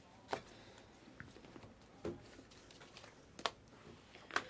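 Trading cards in clear plastic holders being handled: four sharp clicks about a second apart, with faint rustling between them.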